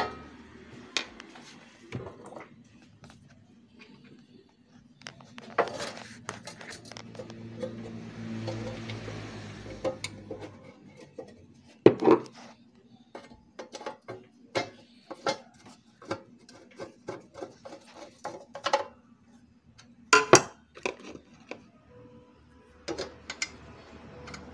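Scattered metallic clinks and knocks as screws and the sheet-metal housing of a cup sealer are handled while it is being put back together. A few sharper knocks stand out, about halfway through and again about three-quarters through.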